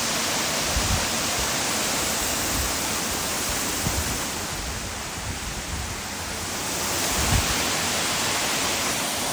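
Waterfall: a steady rush of falling water, dipping a little about midway, with a few brief low thumps.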